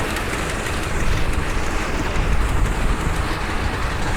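Nexat combine harvester running steadily while harvesting canola, a continuous even machine noise, with wind on the microphone.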